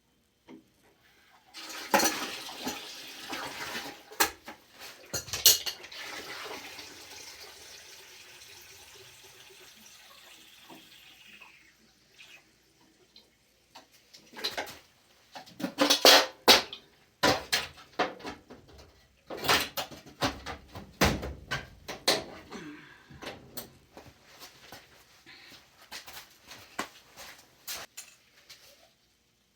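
Metal clinks and clanks of tools and fittings being handled, with a hissing, running-water sound for about ten seconds near the start that fades away, then a run of sharp knocks and clatter.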